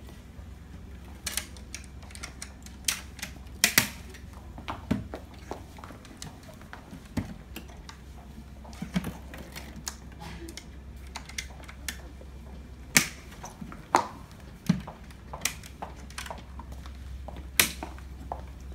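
Irregular sharp clicks and knocks of glossy dance-floor panels and small metal connector pieces being handled and fitted together, over a steady low hum.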